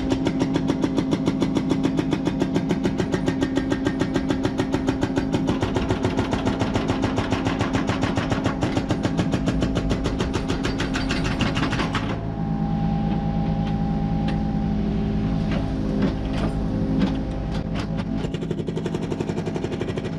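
Mini excavator's hydraulic breaker hammering into the ground with rapid, even blows over the machine's steady engine. The hammering stops about twelve seconds in, leaving the engine running, then starts again in short runs of blows near the end.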